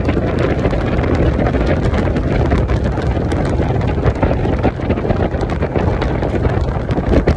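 Wind buffeting the microphone: a steady loud low rumble with frequent small crackles.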